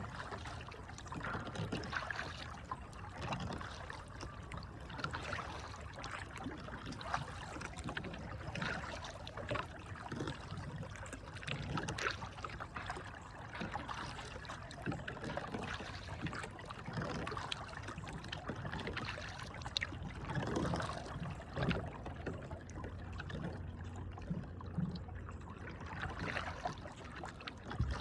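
Kayak paddle strokes in river water, with splashing and water trickling off the blade at irregular intervals of a second or two.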